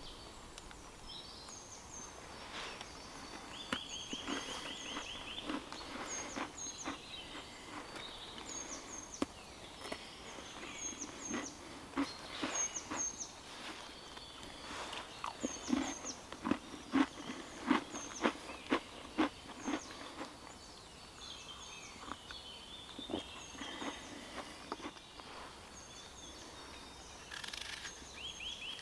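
Forest birds calling: short high double chirps repeat throughout, with a quick rattling trill about four seconds in and again near the end. In the middle there is a run of crackles and clicks, the loudest sounds here, from movement in dry leaf litter and handling close by.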